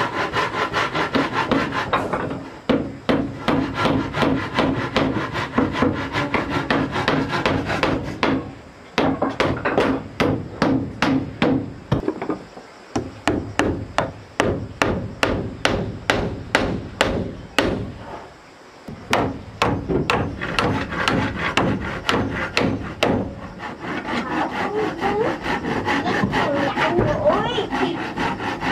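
Wood being worked by hand: a loud, regular run of strokes, about two to three a second, stopping briefly twice before picking up again.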